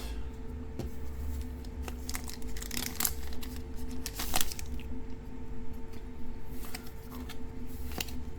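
Trading-card booster pack handled and opened: short irregular rustles and crinkles of the foil wrapper tearing, and cards being shuffled, with the loudest crinkle about four seconds in. A steady low electrical hum sits underneath.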